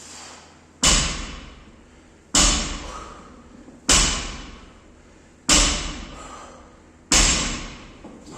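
Five heavy thuds at a steady pace, about one every second and a half, each dying away quickly: repeated reps of a workout movement striking the gym floor.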